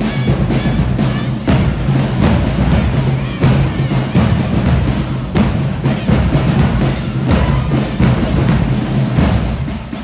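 High school marching band playing dance music, with a steady drum beat of about two hits a second; the music stops at the very end.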